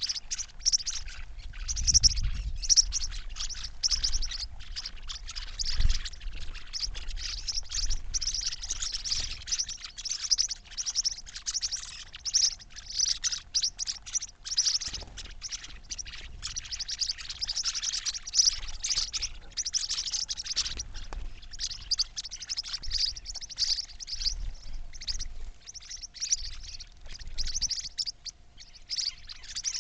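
Many small birds chirping and tweeting continuously in dense, overlapping high calls, with a few low thumps, the strongest about two seconds in, and a faint steady hum underneath.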